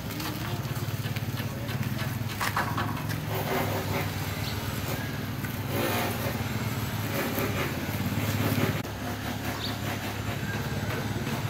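An engine running steadily with an even low pulsing, a little louder about eight seconds in, with scattered knocks over it.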